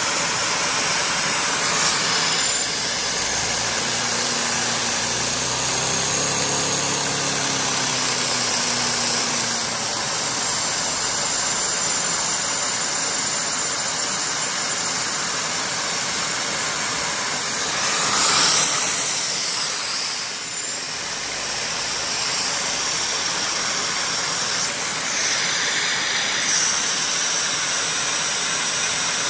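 LEGO two-cylinder boxer vacuum engine running on a household vacuum cleaner's suction: a steady rushing hiss of air through the vacuum, with the spinning engine adding a hum that rises and falls in pitch a few seconds in. A brief louder rush of air comes about eighteen seconds in.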